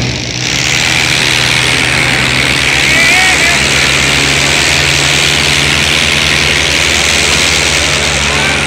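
Two diesel tractors, a Mahindra Arjun 555 and a Powertrac, running hard under full load while pulling against each other on a chain, a loud steady engine noise with a dense hiss that sets in just after the start.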